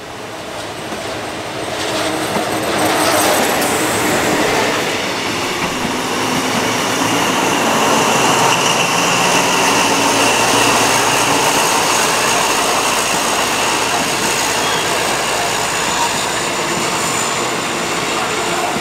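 Passenger train coaches rolling slowly past close by on the adjacent track. The steel wheels give a steady high squeal on the rails, with clicks over the rail joints.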